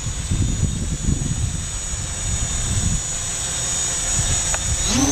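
Scarab MultiWii quadcopter's electric motors and propellers whining steadily as it hovers low, with wind rumbling on the microphone.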